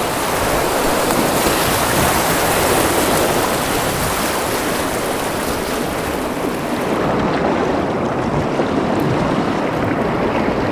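Rushing, churning river water with a steady hiss. About seven seconds in, the sound turns duller.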